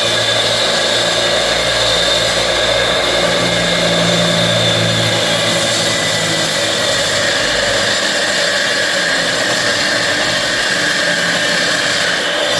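Electric saw running steadily under load as it cuts into a wall, with a high, continuous whine, water-fed while it cuts.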